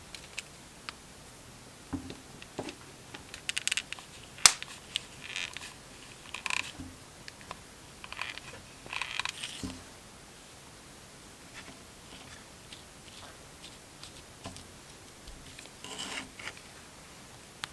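Paper and craft supplies being handled on a desk: short rustles and scrapes with small clicks, busiest in the first half, with one sharp click about four and a half seconds in.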